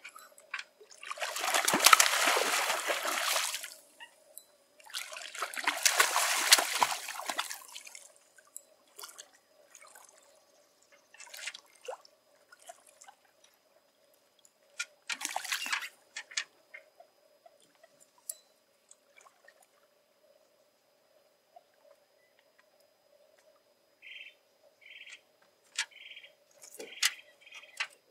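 Water splashing in two loud bouts of about three seconds each as a hooked fish thrashes at the surface of a shallow lake while being reeled in, with a shorter splash some seconds later. Near the end a bird chirps several times.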